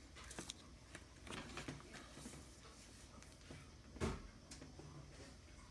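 Faint clicks and light knocks of small objects being handled on a workbench, with a firmer knock about four seconds in.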